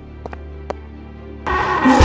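Cartoon background music over a steady low drone. About three quarters of the way through, a loud, harsh sound effect bursts in.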